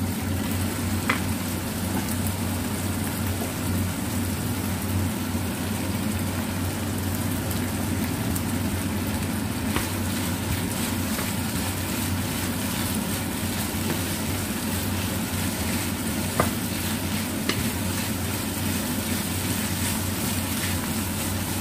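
Chicken and lemon basil leaves sizzling in a nonstick frying pan as a wooden spatula stirs them, with a couple of sharp knocks of the spatula against the pan, over a steady low hum.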